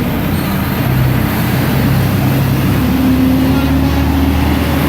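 Semi truck's diesel engine running loudly close by, a low rumble whose pitch steps up and down as the truck moves past.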